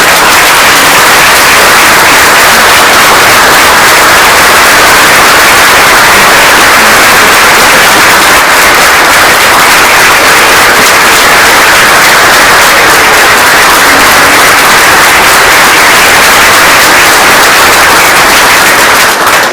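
Congregation applauding in a church, a loud, dense, sustained clapping that starts abruptly and runs without a break before fading into speech near the end.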